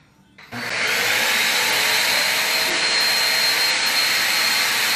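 Food processor starting up about half a second in and running steadily, chopping cauliflower into rice-sized bits, with a steady high whine over the whirr of the blade.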